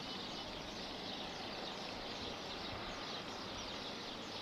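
Open-air ambience: a steady low hiss with many small birds chirping in quick, high twitters.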